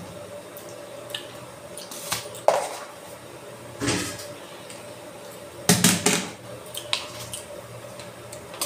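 Steel dishes and utensils being handled, clattering in a few short bursts about two, four and six seconds in, over a faint steady hum.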